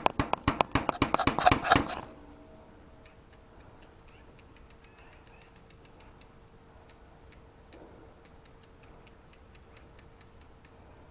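Rapid, loud metallic clicking for about two seconds that stops suddenly, then a faint, steady ticking for the rest: a bicycle freewheel ratcheting as the rear wheel turns, just after its lock ring was tapped tight.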